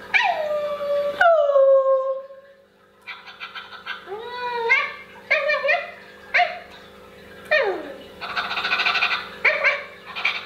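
Electronic dog sounds from a Pets Alive pooping puppy toy's small speaker: a long whine falling in pitch at the start, then a run of short yips and whimpers, with a burst of hiss about eight seconds in.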